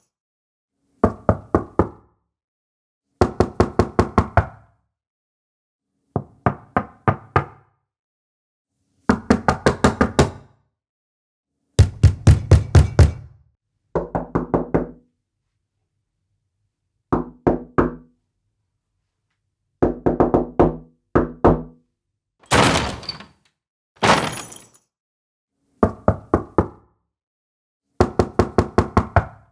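Door knocking in a series of separate bouts, each a quick run of several raps, with silent pauses of one to two seconds between. The knocks vary from bout to bout: some deep and heavy, a couple sharp and bright.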